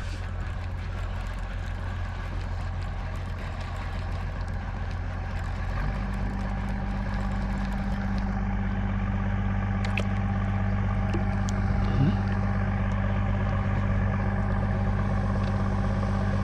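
A motor running steadily, shifting to a louder, deeper note about six seconds in.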